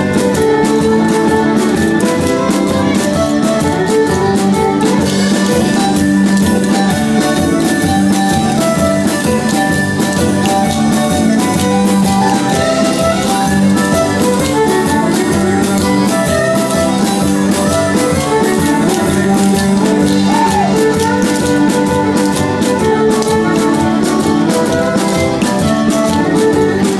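Lively square-dance music led by fiddle and guitar, with a quick steady beat.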